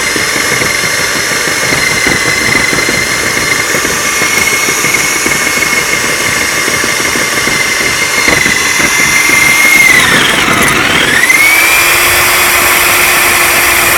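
Diamond core drill reaming out a brick chimney flue: the motor runs with a steady high whine over the grinding of the water-cooled diamond bit on brick. About ten seconds in the whine drops sharply in pitch and climbs back, the bit loading the motor, then it runs steady again with a lower hum added.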